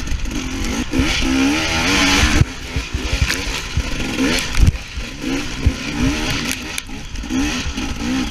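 Enduro dirt bike engine revving up and down repeatedly as it is ridden hard on a rough trail, with a stretch of loud wind rush about a second in and a few sharp knocks from the wheels and suspension over bumps.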